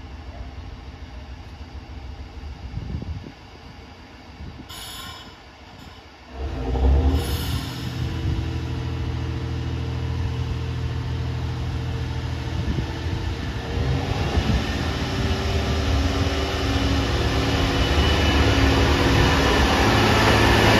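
A JR Hokkaido diesel train's engine opens up suddenly about six seconds in and runs loud and steady as the train pulls away from the station. The running noise grows steadily louder toward the end.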